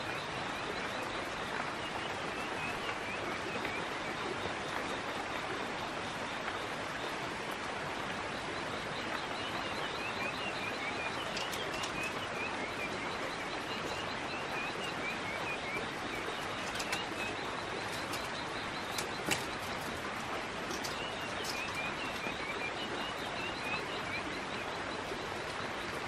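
Rainforest ambience: a steady rushing noise with a fast, even high trill, and runs of short bird chirps that come and go. A few sharp clicks come in the second half, from the bamboo weaving strips being handled.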